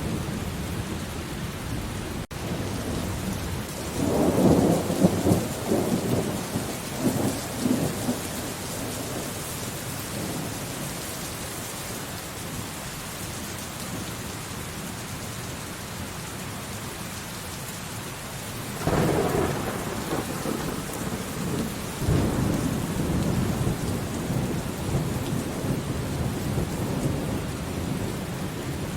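Steady rain with rolls of thunder: one rumble about four seconds in that dies away over a few seconds, and another starting a little before twenty seconds in that swells again a few seconds later and rolls on to the end.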